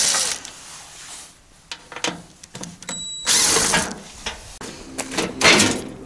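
Cordless drill-driver backing screws out of a mini-split outdoor unit's cover panel in two short runs of motor whine, about three seconds apart. A little after five seconds comes a loud clatter as the cover panel is handled and lifted free.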